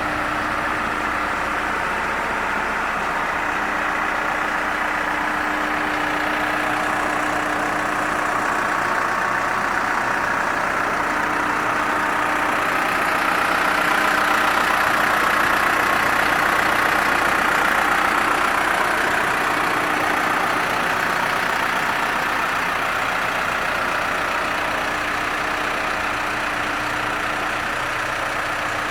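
New Holland LB110 backhoe loader's diesel engine idling steadily, a little louder through the middle.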